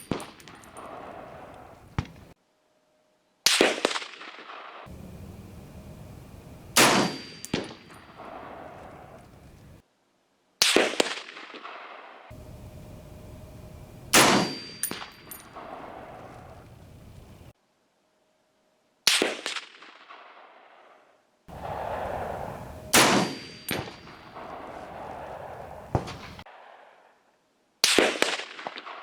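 Rifle shots fired one at a time at a steel target, seven in all, each a sharp crack with a ringing, echoing tail, spaced about three to five seconds apart.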